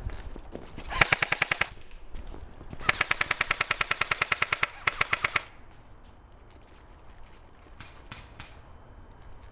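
Airsoft guns firing on full auto: a short burst about a second in, then a longer burst of about two and a half seconds at roughly a dozen shots a second, followed by a few fainter single shots near the end.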